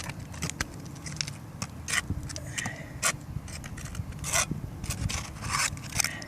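Irregular scraping, rubbing and light knocking of hand work on an asphalt-shingle roof around a soil stack flashing boot, with a few longer scrapes about four and five and a half seconds in.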